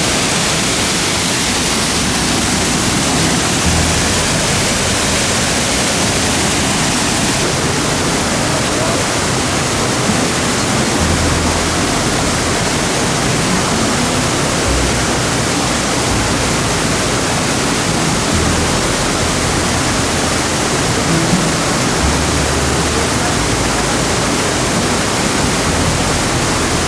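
Waterfall rushing, a loud steady roar of falling water close by.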